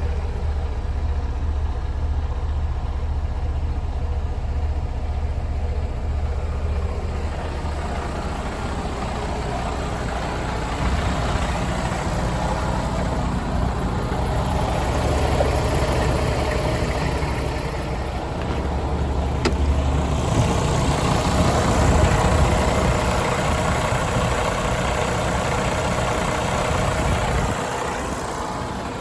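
2020 Freightliner Cascadia semi-truck's engine running at idle, getting louder and fuller partway through and again later before settling back.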